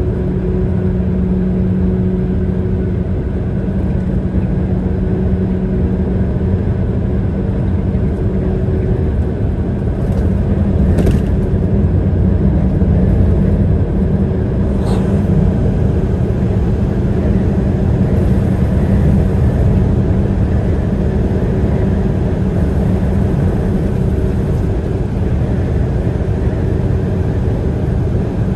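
Highway driving noise from a moving road vehicle: a steady low rumble of engine and tyres with a steady droning engine tone. Two sharp knocks about eleven and fifteen seconds in.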